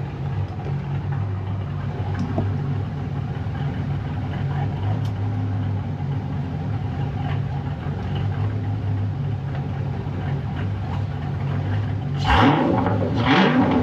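Fox-body Mustang engine idling steadily through a nearly straight-piped exhaust with resonators, then revved up sharply a couple of times near the end.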